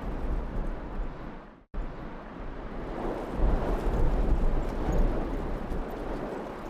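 Hailstones pattering down on a street and balcony, a dense grainy hiss, with wind buffeting the microphone as a low rumble. The sound cuts out briefly a little under two seconds in, then comes back louder.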